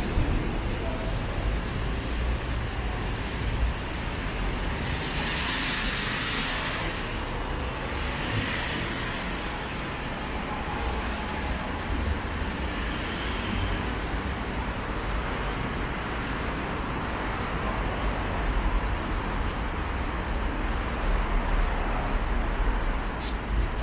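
Street traffic: cars and buses passing with a steady road-noise rumble, and a louder hiss for about two seconds around five seconds in, with a shorter one soon after.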